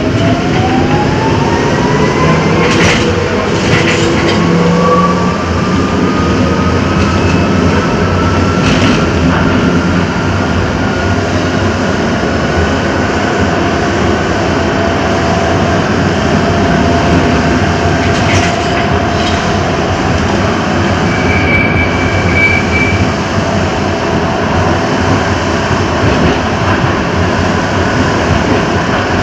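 Amsterdam tram running. Its electric traction motors whine, rising steadily in pitch as it accelerates over the first ten seconds and then holding a steady note at speed. A few sharp clicks come from the wheels on the track, and there is a brief high squeal about three-quarters of the way in.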